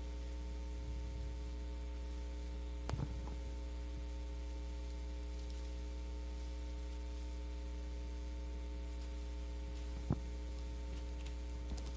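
Steady electrical mains hum, with two soft knocks, about three seconds in and near the end.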